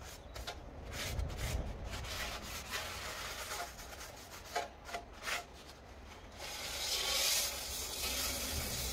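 A cloth rubbing and wiping over the face of a new cast-iron brake disc, cleaning it with brake cleaner: uneven scrubbing strokes with a few light knocks. About six and a half seconds in, a steady hiss starts and becomes the loudest sound.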